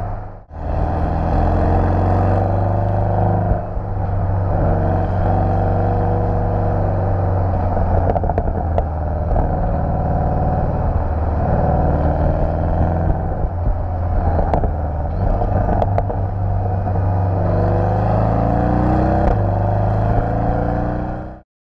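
Porsche 718 Boxster GTS engine and exhaust running as the car is driven, a steady engine note that rises and falls a little with throttle, with road noise under it. The sound drops out briefly just after the start and cuts off suddenly near the end.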